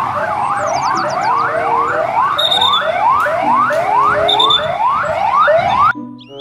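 Police car siren yelping: a fast rising wail that repeats a little over twice a second, sweeping up and down at first and then rising only. It cuts off abruptly near the end, giving way to music.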